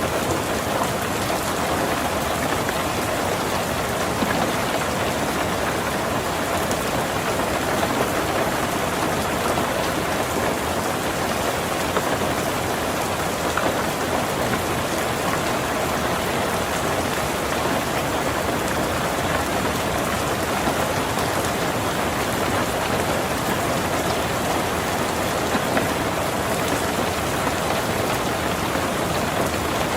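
Heavy rain falling steadily on a tin roof, an even, unbroken patter.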